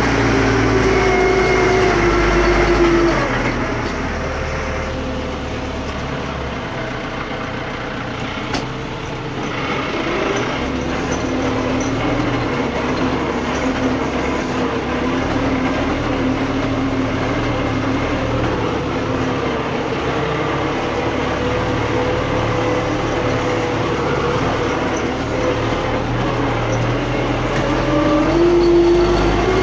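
MTZ-892 tractor's diesel engine running under way. Its revs drop about three seconds in, hold lower and steady for most of the time, then climb again near the end.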